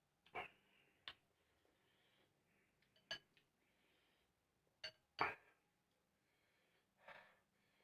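Metal chopsticks clinking against a ceramic noodle bowl several times, sharp single clinks spread out, with a couple of short slurps of noodles.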